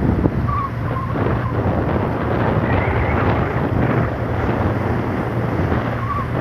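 Wind buffeting the phone microphone on the deck of a ferry at sea, over the steady low hum of the ship's engines.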